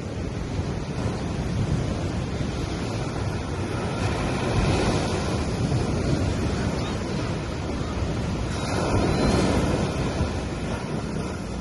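Small sea waves breaking and washing up a sandy beach, with two louder breaks, about four and a half and nine seconds in, over a steady low rumble.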